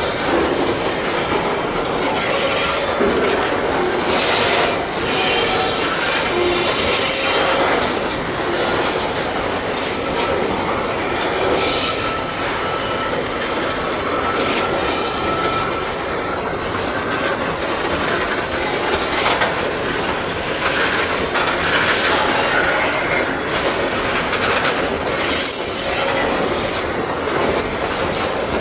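Loaded coal wagons of a long freight train rolling slowly along curving track, steel wheels screeching against the rails in repeated high-pitched bursts over a steady rolling rumble.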